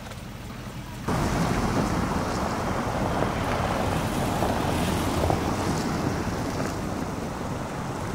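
Steady rushing of wind on the microphone outdoors, starting abruptly about a second in and holding loud and even.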